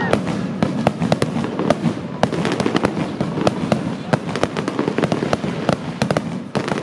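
Fireworks display in a dense barrage: many sharp, irregular cracks and pops in quick succession over a continuous low rumble.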